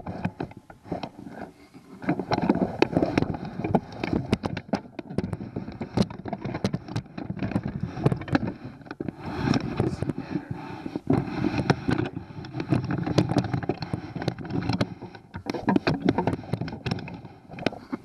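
Irregular scraping, clicking and knocking of metal parts as a Honda 8 hp kicker outboard is swung over to the right, its steel steering rod linkage moving with it.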